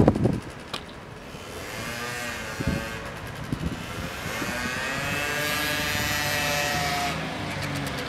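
A car passing on the street, its sound building over a few seconds and then easing off near the end, with a whine that bends up and then down in pitch.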